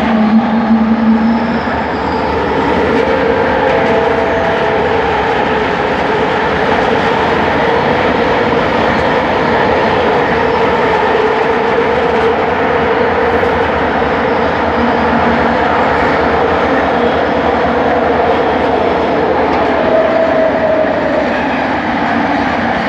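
Bombardier Innovia ART 200 metro train running at speed: a steady rumble of wheels on track with a sustained whine in several steady tones from its linear induction motors.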